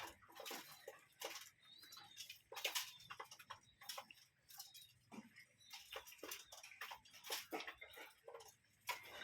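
Quiet, irregular clicks and ticks, with a few faint high bird chirps.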